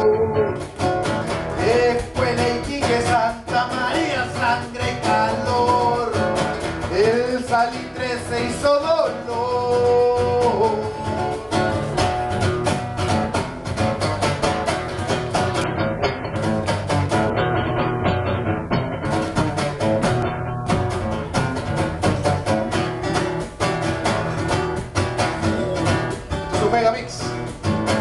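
A man singing while strumming an acoustic guitar; the voice drops out for a stretch of guitar alone in the middle and comes back near the end.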